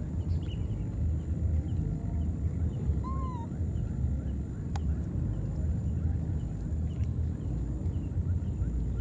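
Outdoor marsh ambience: a steady low rumble under a constant high-pitched hum, with faint small chirps and one short arched call about three seconds in.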